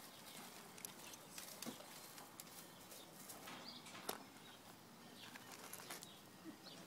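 Near silence with a few faint dry crackles as a Vizsla puppy steps over loose straw, and a few faint high chirps.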